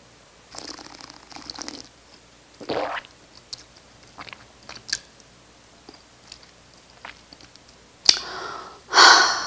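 Mouth sounds of a person tasting a mouthful of white wine, heard close on a clip-on microphone: wet hissy stretches, small clicks and smacks, and a loud breath near the end.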